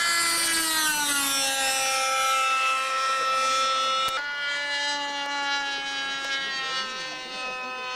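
Ducted-fan engine of a radio-controlled A-4 Skyhawk jet model whining in flight. Its pitch drops over the first two seconds as the model passes, then holds steady. About four seconds in there is a sharp click, after which the whine comes back slightly higher.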